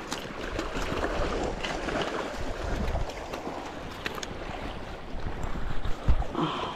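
Wind buffeting the microphone over splashing water, with scattered light clicks and a dull knock about six seconds in.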